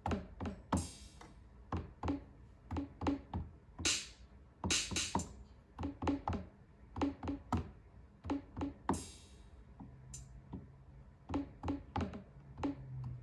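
Electronic drum sounds played from a MIDI keyboard controller: irregular short hits a few times a second, with a few brief cymbal-like splashes, and a low held note near the end.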